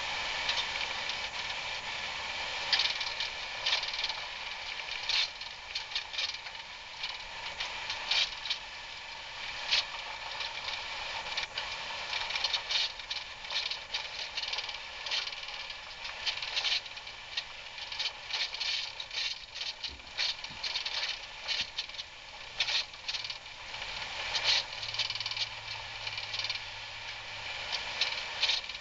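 Off-road vehicle driving down a rough dirt trail: steady running noise with frequent, irregular sharp rattles and knocks as it jolts over the bumps.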